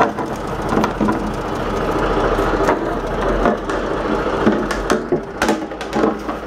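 Fiberglass livewell hatch lid on a boat deck being lifted open and handled, giving scattered knocks and clicks over a steady mechanical running sound.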